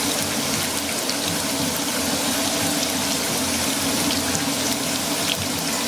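Tortilla triangles deep-frying in hot oil in a pan: a steady, dense sizzle with fine crackles.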